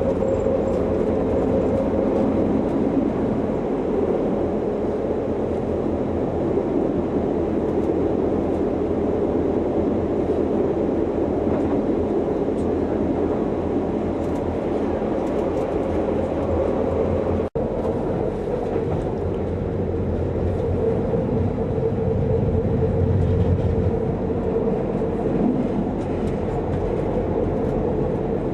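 Interior running noise of a metre-gauge electric passenger train under way: a steady rumble of wheels on rail with a held hum from the drive. The sound drops out for an instant about two-thirds of the way through.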